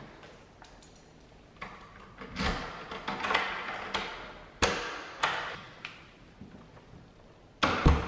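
Hands working a door's knob and lock, with rustling of a bag and clothing and several sharp clicks. A loud thump comes near the end.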